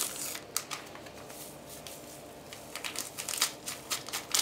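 Small paper sachet rustling and crinkling in the hands as it is opened and shaken out, in scattered small crackles that grow busier in the last second and a half.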